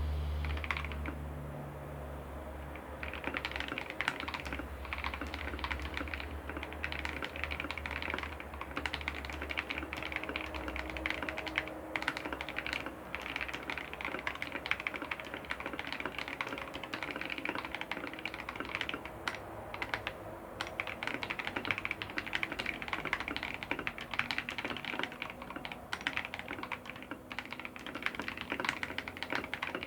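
Fast typing on a Keypole K84 mechanical keyboard: a dense, rapid clatter of key presses that starts about three seconds in and runs on with only brief pauses now and then.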